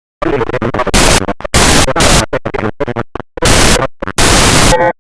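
Very loud, harsh noise that starts abruptly a moment in and is chopped into stuttering bursts by sudden short drop-outs.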